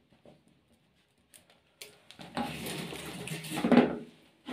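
The paint sprayer's electrical cord and plastic parts being handled and set down on a concrete floor: a few faint ticks, then about two seconds of rustling, clattering scraping, loudest just before it stops.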